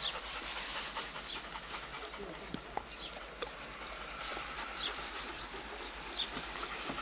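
A bird's short, high, falling chirps, repeated every second or so over a steady background hiss.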